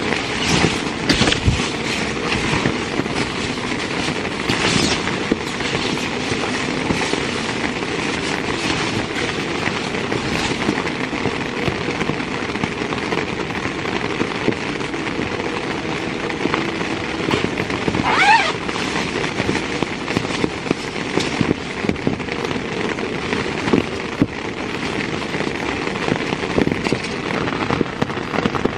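Heavy rain falling on a tent's fabric, heard from inside the tent: a steady, dense crackling patter. A brief rising squeak about two-thirds of the way through.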